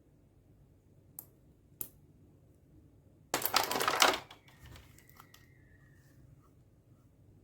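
Toy packaging being handled: two light clicks, then about a second of loud crinkling, followed by a faint squeak and a few small ticks.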